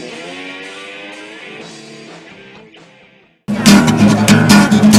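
Background music fades out over about three seconds, then after a brief silence a loud guitar song starts abruptly.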